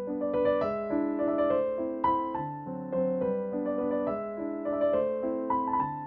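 Background piano music: a gentle melody of struck notes over sustained chords.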